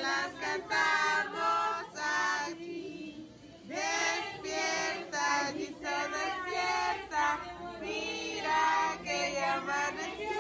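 A group of people singing together, with a short pause about three seconds in.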